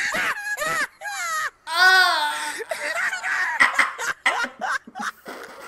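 A string of shrill, wavering cries, each rising and then falling in pitch, the loudest about two seconds in.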